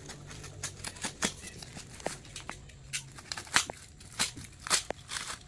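A utility knife slitting packing tape and the plastic wrapping of a parcel, with crinkling plastic: a series of short, sharp scrapes at irregular intervals.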